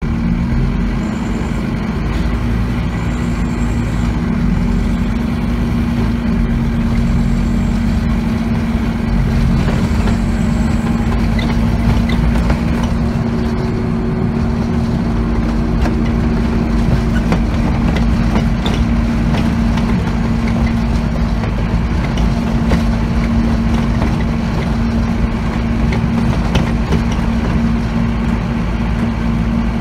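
Inside a moving Scania OmniCity double-deck bus: a steady engine drone and low road rumble, with scattered light clicks and knocks from the cabin as the bus rides over rough road.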